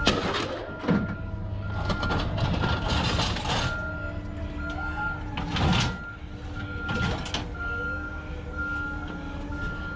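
Bursts of clattering and rustling, as of scrap being handled, over a steady low hum, while a high electronic beep repeats at an even pace.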